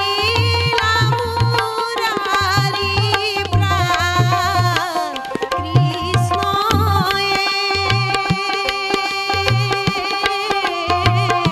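Assamese folk song sung by a woman with ornamented, wavering held notes, accompanied by tabla keeping a steady beat and a bamboo flute.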